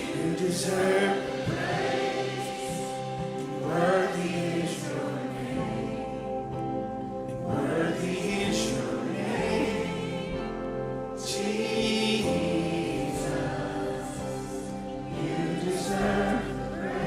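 A church congregation singing a worship song together in full voice, over sustained instrumental chords.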